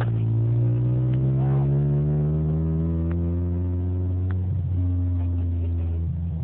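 Towing vehicle's engine running under steady acceleration, its pitch climbing slowly, then dropping at a gear change a little over four and a half seconds in before it starts to climb again.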